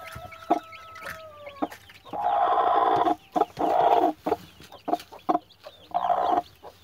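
Broody hen sitting on her hatching clutch: one long held call near the start, then rougher drawn-out clucking calls around the middle and again near the end. Newly hatched chicks peep faintly from under her, with a few light clicks from the nest.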